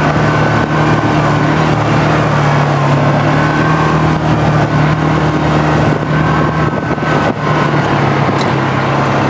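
Off-road vehicle engine running at a steady pitch while driving along a rough dirt trail, with the rumble of the tyres on the track.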